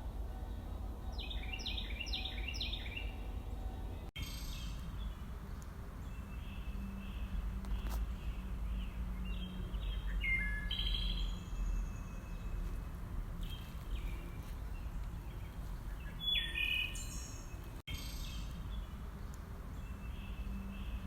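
Wild birds singing: a quick run of five or so falling chirps about a second in, then further short phrases near the middle and toward the end, over a steady low outdoor rumble. The sound drops out for an instant twice, at about four and eighteen seconds.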